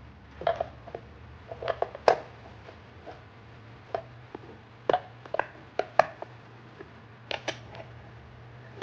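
Irregular clicks and knocks of AA batteries being fitted into a digital chess clock's plastic battery compartment, with the sharpest knocks about two and six seconds in.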